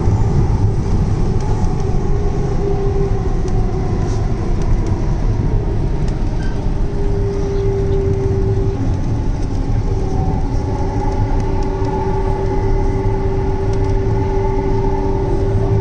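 Hyderabad Metro train (Hyundai Rotem electric multiple unit) running at speed, heard from inside the carriage: a steady rumble of wheels on rail with a steady whine that becomes stronger about halfway through.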